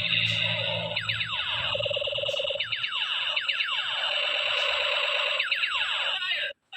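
Battery toy gun's electronic sound-effect chip firing: clusters of quick falling laser-style sweeps over a steady buzzing tone. It cuts off abruptly near the end.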